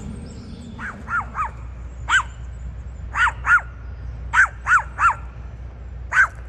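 Dog barking in short groups of one to three barks, about eleven in all. These are warning barks, the dog guarding its camp.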